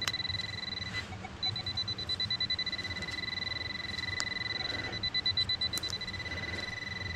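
A metal detector's continuous high electronic tone, held and slightly pulsing, as it sits over a strong target: a big buried metal object. A few sharp knocks sound over it, about a second in and again near the middle.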